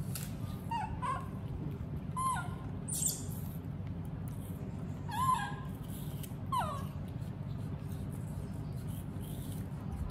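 Baby monkeys giving short, high calls, each a quick bend in pitch, about five of them spaced unevenly, over a steady low background hum.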